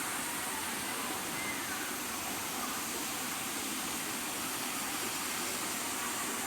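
Kulen Waterfall's falling water rushing steadily.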